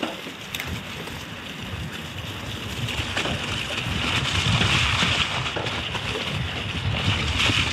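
Wind noise on the microphone with mountain bike tyres rolling and rattling over a rough trail, getting louder about three seconds in as the bike picks up speed.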